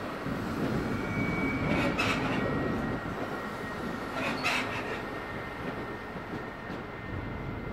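Loco-hauled double-deck regional train rolling out, a steady rumble with a sharp wheel clatter twice, about two and a half seconds apart, and a faint thin squeal; the rumble eases in the second half as the train pulls away.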